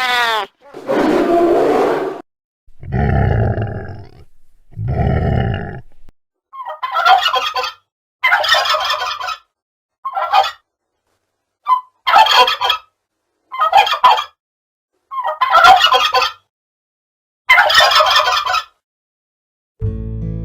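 A tom turkey gobbling again and again, about nine rattling gobbles roughly a second apart. They come after a few shorter, different calls in the first six seconds.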